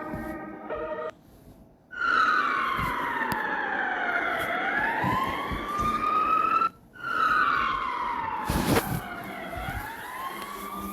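Emergency-alert siren wailing in slow sweeps, each falling in pitch for about two and a half seconds and then rising again, twice over with a short break between. It opens with about a second of stepped organ-like tones and a brief silence, and a short crackling burst sounds about eight and a half seconds in.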